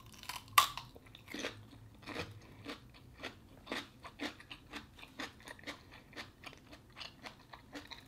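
A bite into a whole raw English cucumber with one loud crunch, then steady crunchy chewing at about two chews a second.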